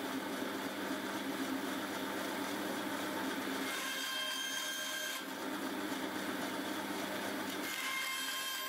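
Bandsaw running and cutting small pieces of reclaimed ash, a steady motor hum with the noise of the blade through the wood. The sound breaks briefly about five seconds in.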